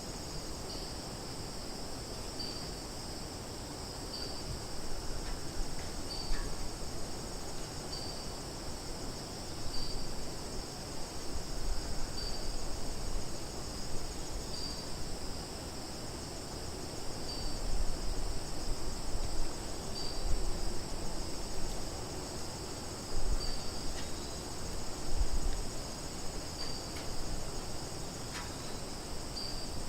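Summer forest ambience: a steady high insect chorus, with a short high chirp repeating every two seconds or so. Low rumbles swell for a few seconds at a time in the second half.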